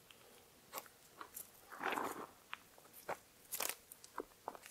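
A black strap being pulled off a plastic-wrapped block of ballistic gel: faint crinkling and rubbing of the plastic wrap, with a brief louder rustle about two seconds in and scattered small clicks and snaps.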